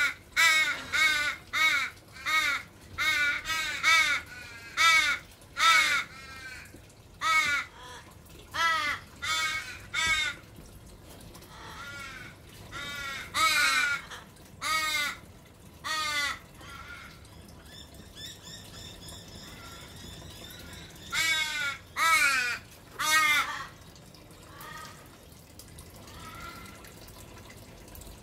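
A recently fledged Australian raven begging with wailing calls. They come quickly at first, about two a second, then thin out to one every second or so, pause, and return as a few more that fade near the end.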